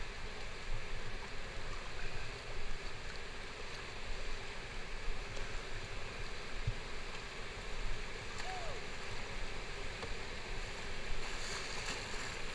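Whitewater rapid rushing: a steady hiss of river water pouring through boulders.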